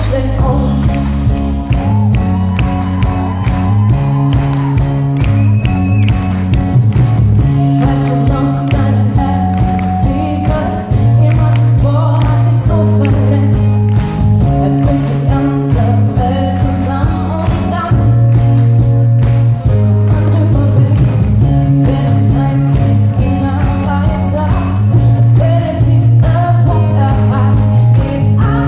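Live pop-rock band: a female singer with electric guitars, bass guitar and drums keeping a steady beat, heard from the audience.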